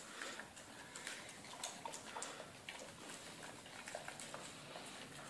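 Labrador retrievers licking food out of a small foil tray held in a hand: faint, irregular licking and small clicks.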